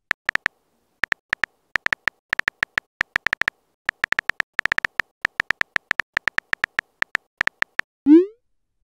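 Phone keyboard key-tap sound effect: rapid short clicks in uneven runs as a text message is typed. About eight seconds in, a short rising whoosh follows as the message is sent.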